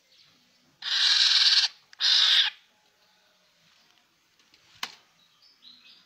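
Black-naped oriole giving two harsh, rasping calls, the first about a second long and the second shorter, followed by a single sharp click.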